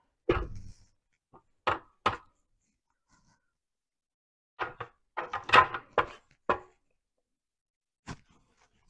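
Spatula scraping and knocking against a stainless-steel stand mixer bowl: scattered single knocks, with a quick cluster of them about five to six and a half seconds in.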